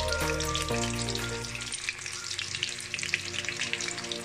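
Breadcrumb-coated cream dory fillets frying in hot oil in a wok, crackling and sizzling steadily as metal tongs turn them.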